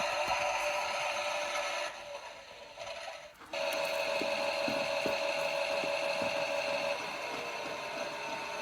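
Theo Klein 6941 toy Miele washing machine running a wash programme: a steady whirring wash sound through its small speaker, with light knocking from the turning drum. It drops out about two seconds in, starts again about a second and a half later, and shifts slightly near the end.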